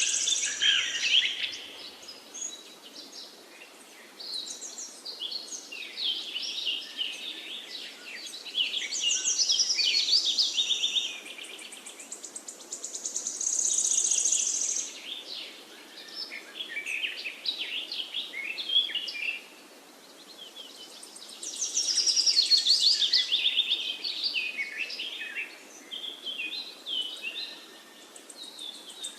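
Songbirds singing: bursts of quick high chirps and trills that come in phrases every few seconds, over a faint steady background noise.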